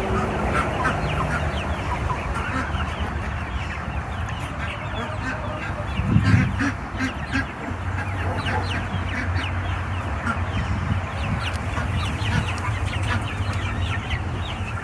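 A flock of chickens clucking and calling constantly, many short calls overlapping, with other poultry among them.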